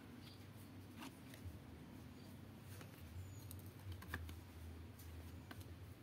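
Faint, scattered clicks and taps from hands handling collectible cards and an EVA foam card holder and setting them down, over a low steady hum.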